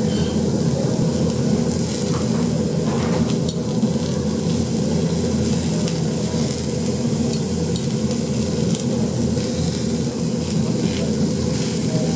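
Mutton sizzling on a jingisukan (Genghis Khan) grill, over a steady low hum, with a few faint clicks.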